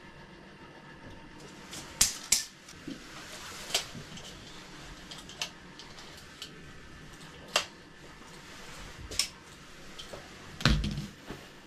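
Scattered sharp clicks and knocks from handling a light-up window sign and its wiring, about a dozen at uneven intervals, with a heavier thump near the end.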